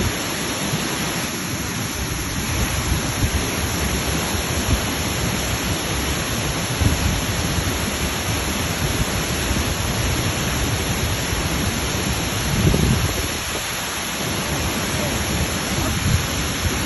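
Waterfall: a steady rush of falling water, heaviest in its deep low rumble.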